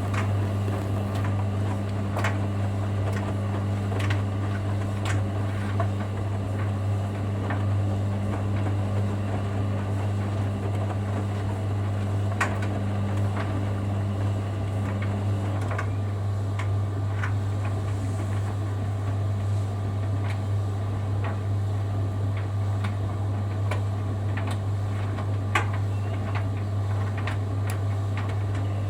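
Laundry machines running early in a wash cycle: a steady low hum with scattered light clicks and knocks as the drum turns. A second, higher hum drops out about halfway through.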